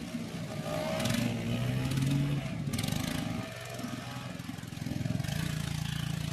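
ATV (quad bike) engines running as the quads ride a dirt track, revving up and down, then holding a steadier note near the end.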